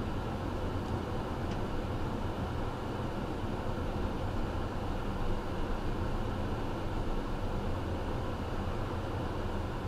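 Steady road and engine noise of a moving car, heard from inside its cabin: an even low rumble with a hiss of tyre and wind noise over it.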